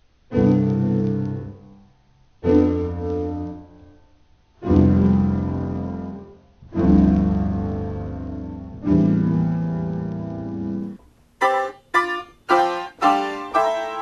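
Piano playing five slow, heavy low chords about two seconds apart, each struck and left to ring and fade. Near the end a brighter passage of quick, short notes begins.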